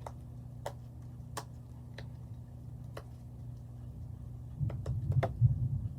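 Silicone Pop-It fidget toy being popped on its loud side: single sharp clicking pops spaced out at first, then a quicker run of pops with soft thumps near the end.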